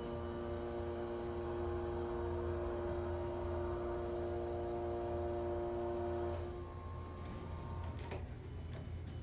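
Elevator running with a steady hum of several held tones over a low drone, which stops about six seconds in; a few faint clicks follow near the end.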